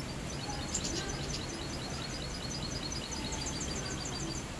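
Caged mixto, a finch–canary hybrid, singing: quick high chirps and trills, then a fast run of evenly repeated notes near the end, over steady low background noise.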